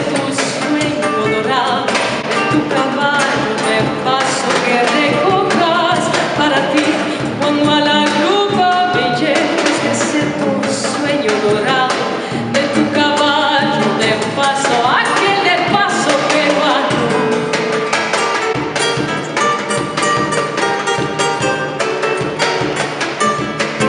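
A woman singing a Latin American song, accompanied by a classical guitar and a hand-played barrel drum. Near the end the voice drops out, leaving the guitar and drum.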